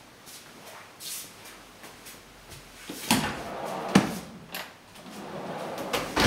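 A built-in pull-out dishwasher drawer sliding open on its rails with a sharp clack about four seconds in, then rolling shut and closing with a thud near the end.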